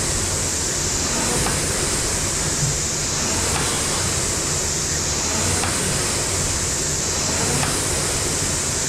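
Air-resistance rowing machine, a Concept2 knockoff, with its fan flywheel whooshing. The whoosh swells and fades with each stroke, about one stroke every two seconds, over faint knocks of the seat and chain.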